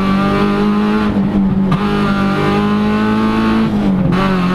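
VW Polo rally car's engine running hard at speed, heard from inside the cabin, its note dipping briefly about a second in and again near the end.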